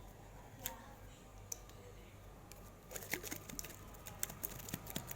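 Slime being handled and squeezed in its container, giving small sticky clicks and pops: a few scattered ones at first, then a quick run of them about three seconds in.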